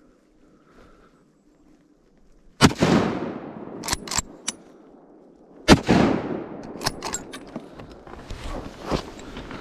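Two loud gunshots about three seconds apart, fired at a whitetail buck from a boat, each ringing out with an echo. A few sharp clicks follow each shot.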